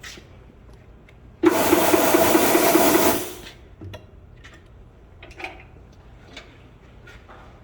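Pneumatic impact wrench run in one burst of about two seconds, a fast rattling hammer with a loud air hiss, cutting off sharply. Faint clicks and knocks come before and after it.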